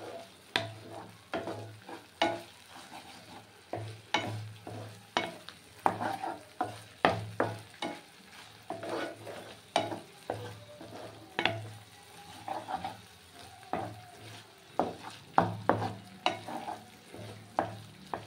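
Spatula stirring and scraping a thick ground spice paste frying in oil in a non-stick pan, over a soft sizzle; the strokes come irregularly, roughly once a second, each a short scrape or knock. The masala is being fried down (kashano) on a medium flame.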